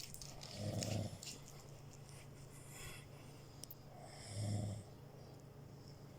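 Snoring: two slow snores about three and a half seconds apart, each a low rasping rumble on the breath, with softer breathing between them.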